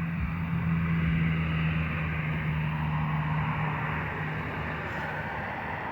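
A motor running steadily: a constant low hum under an even hiss, a little louder in the first couple of seconds.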